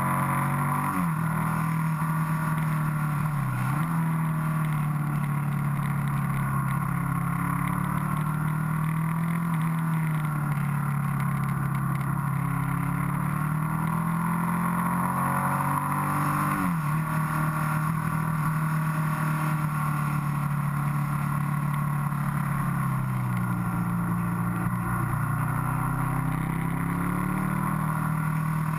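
Motorcycle engine heard from the rider's seat, its pitch rising and falling with the throttle through a run of bends and dropping sharply a few times at gear changes, over a steady rush of wind.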